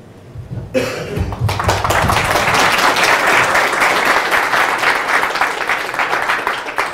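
Audience applauding, starting about a second in, swelling to a steady clatter of many hands and thinning out near the end.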